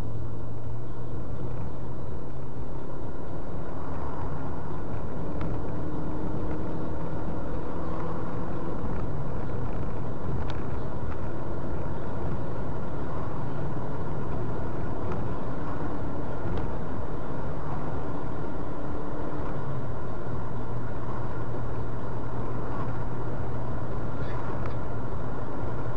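Car engine and road noise heard from inside the moving car, a steady hum whose engine note shifts slightly in pitch a couple of times.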